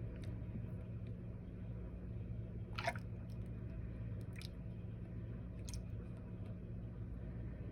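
Bath bomb fizzing in water: faint wet crackling with three short sharp pops or ticks, over a steady low electrical hum.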